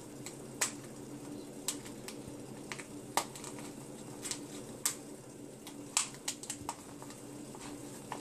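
Tweezers clicking and tapping against a glass jar as plant roots are pushed through its narrow neck: scattered, irregular sharp ticks over a steady low hum.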